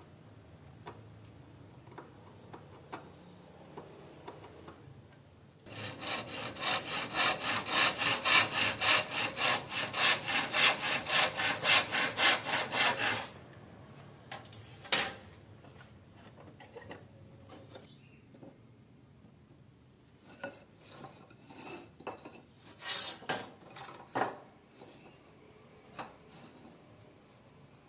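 Hand saw cutting with a run of quick, even back-and-forth strokes, about three a second, for some seven seconds, followed later by a few small knocks and scrapes as the work is handled.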